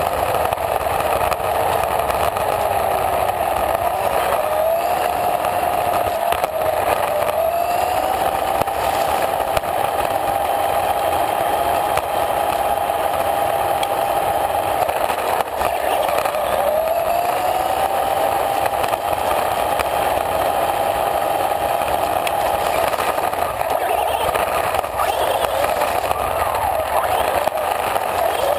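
A radio-controlled car's motor whining as heard from a camera riding on the car, its pitch climbing about four seconds in, holding steady, dipping about halfway through and climbing again as the car speeds up. Under it runs a steady rush of tyre noise over rough, leaf-strewn asphalt, with small knocks and rattles.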